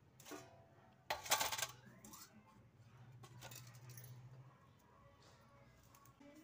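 Metal kitchenware being handled: a few light clinks and one loud, brief clatter a little over a second in.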